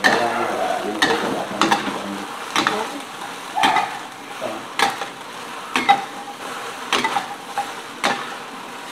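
Metal spatula scraping and knocking against a stainless-steel wok as sliced luffa is stir-fried, over a steady sizzle. The spatula strikes come about once a second.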